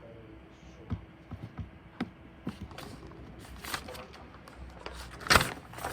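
Scattered light taps and clicks from desk work, irregular, with a short louder knock or rustle about five seconds in.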